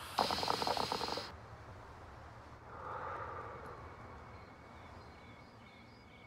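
A hookah drawn on: the water in its base bubbles in a rapid gurgle for about a second, then a breathy exhale of the smoke follows a couple of seconds later.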